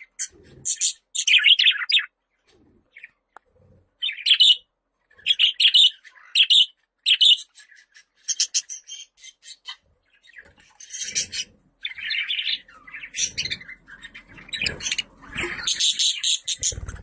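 Budgerigar chirping and chattering in quick, high-pitched bursts. It pauses briefly about two seconds in, and the chatter grows denser in the second half.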